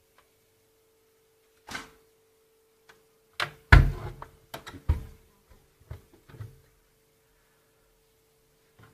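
A series of irregular knocks and thumps, the loudest about four seconds in, over a faint steady hum.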